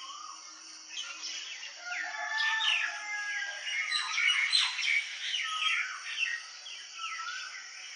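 Dawn chorus of several birds calling and singing at once: many overlapping chirps and short whistled notes, busiest a couple of seconds in, over a steady high hiss.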